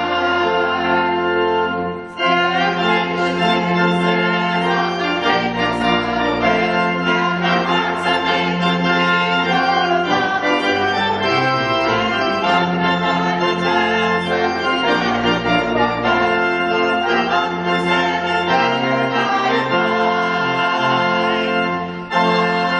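Church organ playing slow held chords over a sustained bass line, the chords changing every second or two, with short breaks between phrases about two seconds in and near the end.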